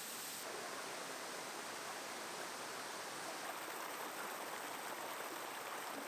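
Steady rush of flowing water from a stream, an even hiss with no distinct splashes; its tone shifts slightly about half a second in and again about three and a half seconds in.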